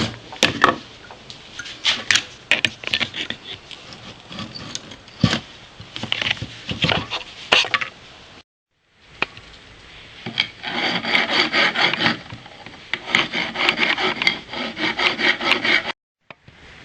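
Hand-tool work on hard parts: a string of sharp knocks and clinks, then, after a brief break, several seconds of fast rasping strokes like filing or sawing.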